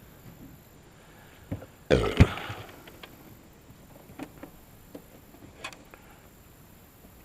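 Handling noises in a small fishing boat: one short, low, rough thump about two seconds in, followed by a few light knocks and clicks.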